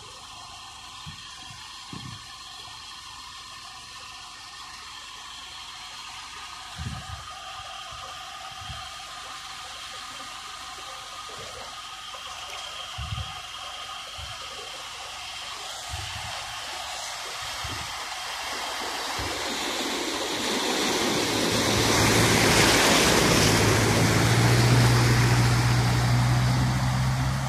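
A small SUV drives through floodwater on a road. A rushing swash of water thrown off its wheels builds over the last third to its loudest near the end, over a low steady engine hum. Before it, a fainter steady rush of water.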